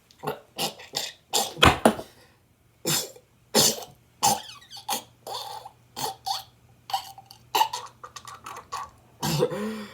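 An irregular run of short, sharp noises close to the microphone, roughly two a second, some coughing-like.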